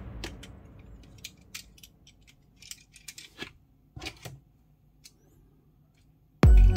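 Plastic parts of an Armored Saurus Pteranodon DX transforming toy clicking and snapping as they are moved, a dozen or so light, sharp clicks scattered over a few seconds. Electronic background music fades out at the start and comes back in near the end.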